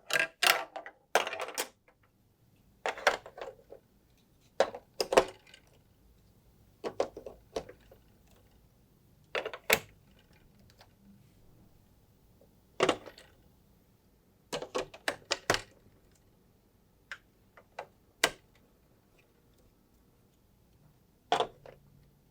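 Marbles clattering along a plastic building-block marble run: clusters of sharp clicks and short rattles every few seconds, with quiet gaps between.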